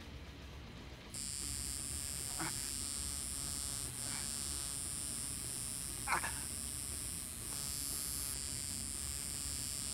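Electric tattoo machine running with a steady high-pitched buzz while the needle works on skin. It switches on about a second in, and a few short, faint pained sounds come through over it.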